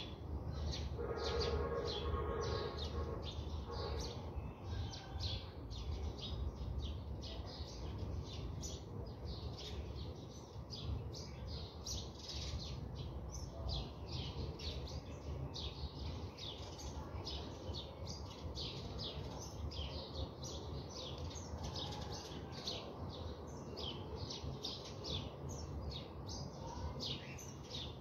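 Small birds chirping busily, many short high chirps every second over a low steady rumble. A lower, held, pitched note sounds for about two seconds, starting about a second in.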